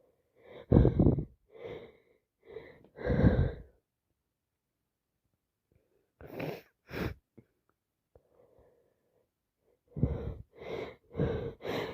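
A person with a heavy cold taking repeated hitching, wheezy gasps as a sneeze builds. The gasps come in groups, the loudest about one and three seconds in, with a pause of about two seconds in the middle, then quicken near the end.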